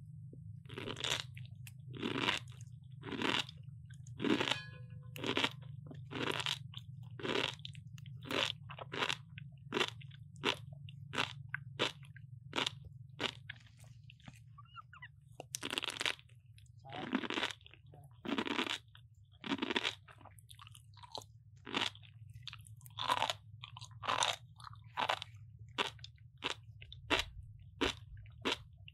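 Baby macaques biting and chewing crisp slices of raw green-skinned vegetable: a long run of loud, wet crunches, roughly one every half second to second, over a steady low hum.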